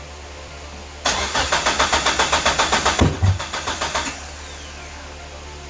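Starter cranking a Mitsubishi 4G63 four-cylinder for about three seconds, starting about a second in, with a rapid even pulsing; the engine does not catch. It has crank sync from the new 12-1 trigger wheel but won't stay running.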